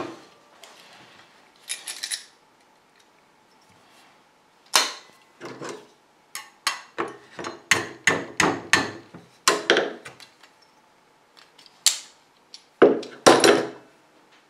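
Hammer tapping copper wire held in vise grips: sharp metal taps, several a second, starting about five seconds in, then a few more near the end.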